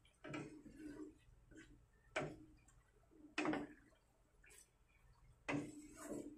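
Wooden spatula scraping and knocking against a nonstick pan as a stir-fry in sauce is tossed, a separate stroke every second or two.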